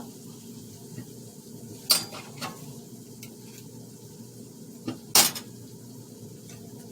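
Metal serving utensils clinking against a plate and pan as food is dished up. There are a few sharp clinks about two seconds in and again about five seconds in, the last the loudest, over a steady low background.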